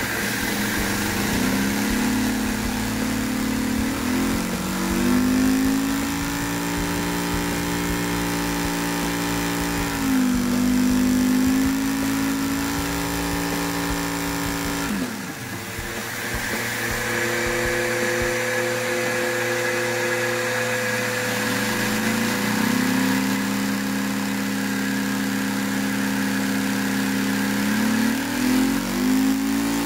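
Vacuum cleaner running loudly while it powers a one-cylinder LEGO vacuum engine revving at around 3,000 RPM. The pitch climbs and sags several times, with a sudden drop about halfway through that climbs back.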